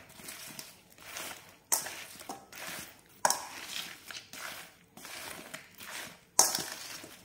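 A metal spoon stirring and tossing chunks of galgal (hill lemon) coated in spices in a stainless steel bowl: a series of scraping, squishing strokes a second or so apart, the strongest starting suddenly about two, three and six seconds in.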